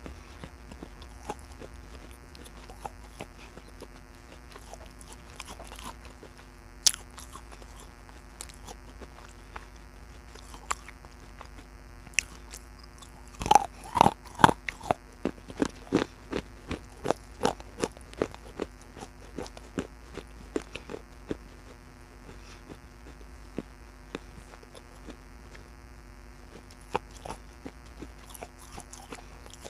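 Close-miked biting and chewing of baked clay pot pieces: scattered sharp crunches, a burst of loud bites about 14 seconds in, then steady crunching chews about twice a second that thin out toward the end.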